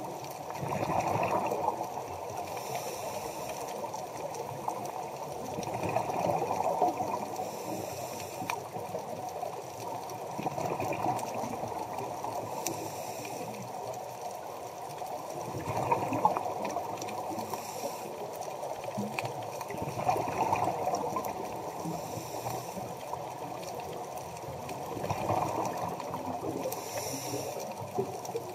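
Scuba diver's regulator breathing, heard underwater through the camera housing: a rush of exhaled bubbles about every five seconds, with a fainter, higher hiss of each inhalation in between.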